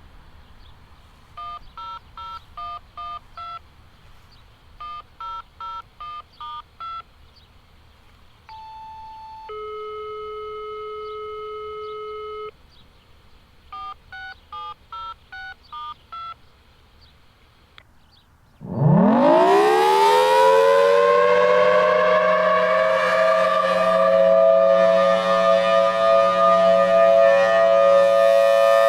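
Siren activation tones over a scanner radio: three quick runs of touch-tone (DTMF) beeps, with a steady tone of about three seconds between them. About nineteen seconds in, the Federal Signal Thunderbolt 1003 outdoor warning siren starts, winding up sharply in pitch, then holds a loud steady Alert tone.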